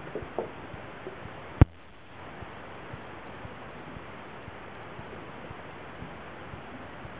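Steady underwater hiss in a dolphin pool, with a single sharp knock about a second and a half in and a few faint short sounds just before it.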